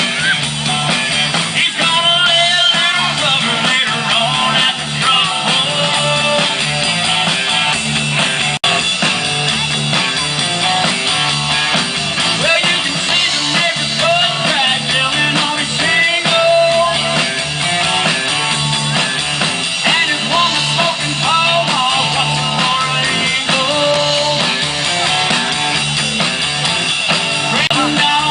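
Rock-style music with singing, guitar and drums, cut off for an instant about eight and a half seconds in.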